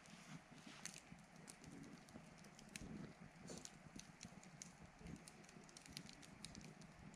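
Wood campfire crackling faintly, with many small irregular pops and snaps.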